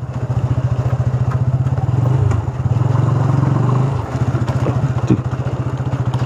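Motorcycle engine running at low speed in a low gear on a rough dirt track, its exhaust pulsing evenly. The engine note shifts about two seconds in and drops again about four seconds in as the throttle changes.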